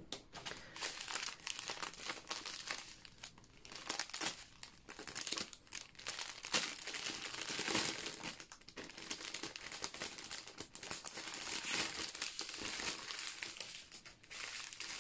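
Clear plastic zip-lock bags of diamond-painting drills crinkling as they are handled and sorted, in quick irregular crackles.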